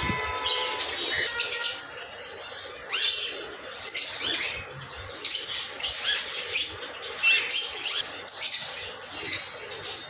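Caged pet birds chirping and squawking, many short high-pitched calls overlapping one after another.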